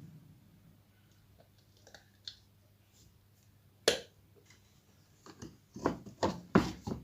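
Magnet being fitted onto a horn driver unit during reassembly: a few faint handling ticks, one sharp click about four seconds in, then a quick run of knocks and clacks near the end.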